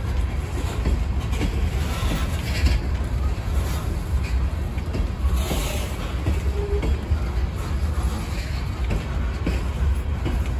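Covered hopper cars of a freight train rolling past close by: a steady rumble of steel wheels on the rail, with a few brief clanks.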